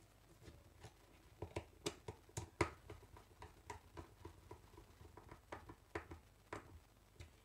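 Faint irregular clicks and small scrapes of a screwdriver working a terminal screw on a plastic thermal overload relay, fastening a wire into its terminal.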